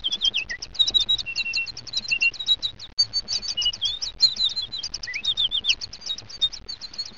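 Small birds chirping, many short high calls quickly overlapping in a continuous birdsong background, over a faint low hum.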